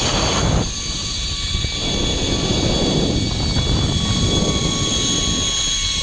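Zipline trolley pulleys running fast along a steel cable, a steady high whine under loud rushing wind on the microphone.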